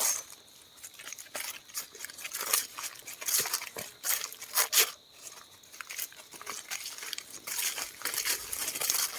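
Footsteps crunching through dry leaf litter: irregular crackles several times a second, with a short lull about halfway through.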